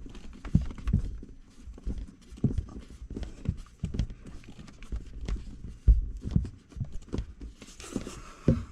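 Irregular knocks, clunks and clicks, roughly one or two a second, of hands and a tool working a screw in a cramped spot under a windshield, with the camera itself bumping against parts.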